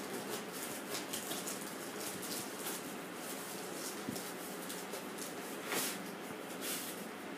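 Faint rustling and crinkling of plastic wrap and cardboard as hands dig into a foam-packed box and pull out a wrapped packet, with a slightly louder rustle about six seconds in, over a steady background hiss.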